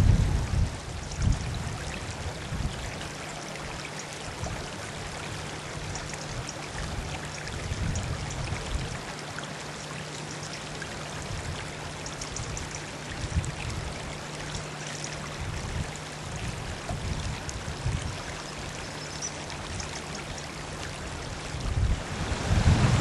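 A small shallow stream flowing steadily over stones, a constant rushing trickle. Gusts of wind buffet the microphone now and then and grow stronger near the end.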